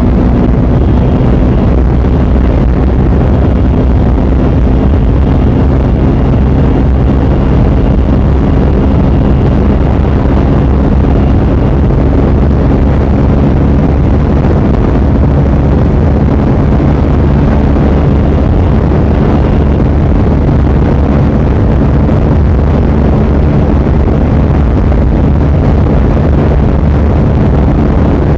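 KTM Duke 390's single-cylinder engine, fitted with an SC-Project aftermarket exhaust, running steadily at high revs with the throttle held near top speed, about 120–140 km/h, under heavy wind blast on the microphone.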